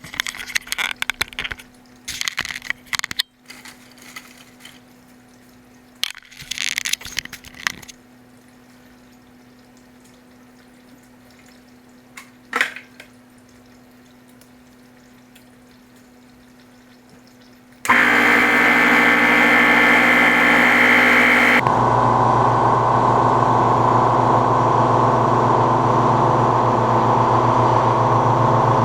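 Clicks and handling noises over a faint steady hum, then about 18 seconds in a Tuxing twin-cylinder high-pressure air compressor starts abruptly and runs loudly with air hissing from its open bleed valve. About four seconds later the hiss drops away as the valve is closed, and the compressor runs on steadily under load, building pressure.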